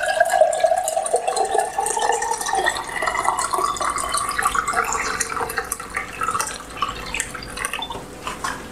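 Water poured in a steady stream from a plastic bottle into a stainless-steel kettle, splashing into the pot as it fills; the pour eases off near the end.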